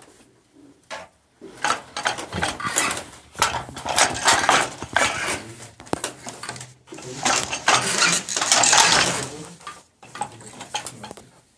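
Hand-worked wooden floor loom clattering as it weaves: rapid wooden knocks and rattles as the beater is pulled against the cloth and the shuttle is passed. The clatter starts after a short pause and grows loudest a little past the middle, then pauses again near the end.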